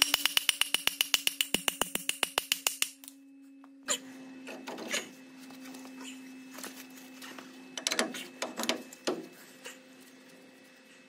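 Rapid, evenly spaced hammer taps on a heavy steel truck drum-brake shoe, about eight a second for roughly three seconds. Then scattered metal knocks and clunks as the shoe is fitted onto the brake anchor at the wheel hub, over a steady low hum.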